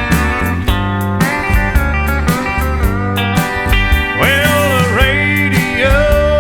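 Country song with guitars, bass and a steady drum beat; a gliding melody line, steel guitar or voice, comes in about four seconds in.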